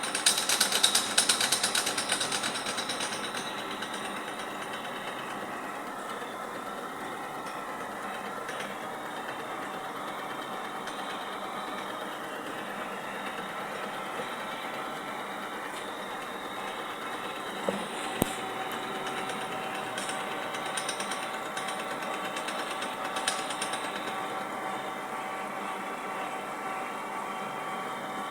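Pyung Hwa milling machine machining metal: a loud, rapid chattering rattle for the first few seconds, then steady running with a constant whine. A few sharp clicks about two-thirds of the way in.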